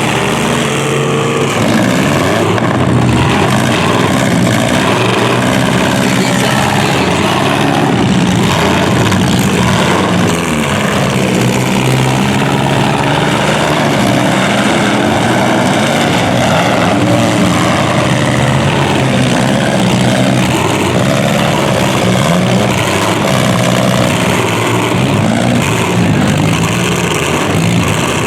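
Several demolition derby car engines running and revving hard, their pitches rising and falling over one another without a break.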